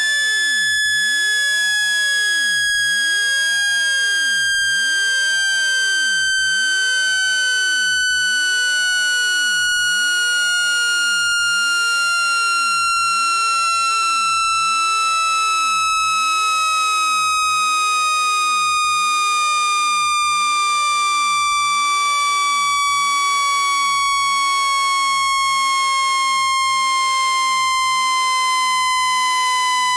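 A synthetic water-eject tone for clearing water from a phone speaker. It is one steady electronic tone with overtones, gliding slowly and evenly down in pitch the whole time.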